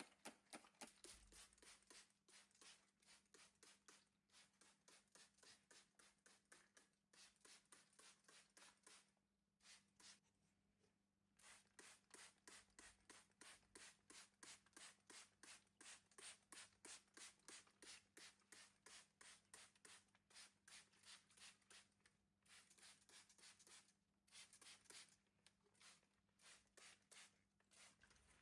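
Faint, quick, rhythmic scratching or rubbing strokes, about three to four a second, breaking off briefly now and then, over a steady low hum.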